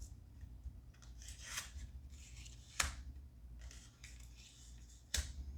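Tarot cards being shuffled and handled: soft swishing rustles with two sharp snaps, one near the middle and one near the end.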